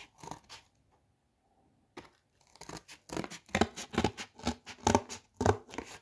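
Hand scissors cutting through cardboard: a few short snips, a pause of about a second and a half, then a quick run of louder snips through the second half.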